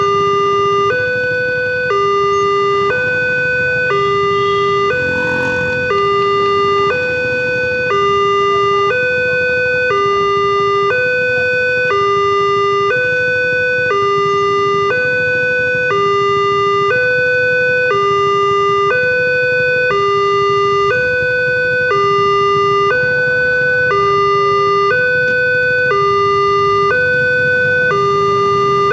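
Multech railway level-crossing warning alarm sounding its electronic two-tone call, switching between a lower and a higher tone about once a second without a break. It signals that the crossing is closed for an approaching train.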